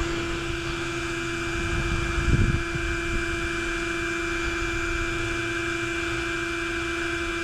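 A steady electrical-sounding hum with one constant tone over a faint hiss, and a short low rumble a little over two seconds in.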